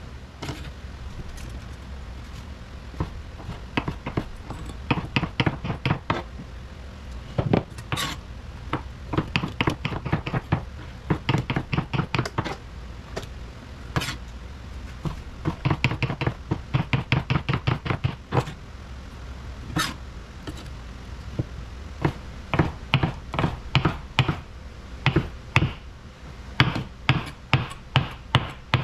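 Chef's knife chopping shucked oysters on a white plastic cutting board: runs of quick knocks, about five or six a second, broken by short pauses.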